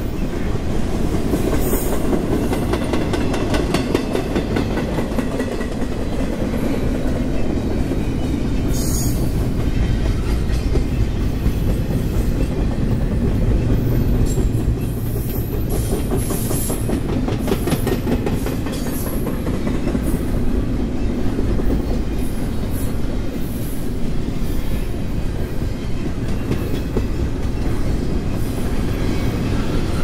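Double-stack intermodal freight cars of a long CSX train rolling past: a steady low rumble, with wheels clicking over the rail joints.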